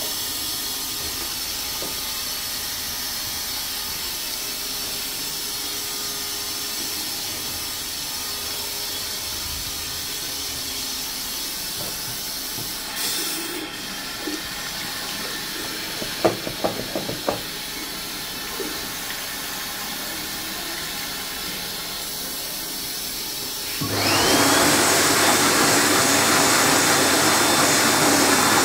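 A toilet cistern refilling with a steady hiss, with a basin tap running and hands splashing under it midway. About 24 seconds in, a Biodrier Biolite hand dryer starts up, the loudest sound: a whine that rises quickly, then holds high over a strong rush of air.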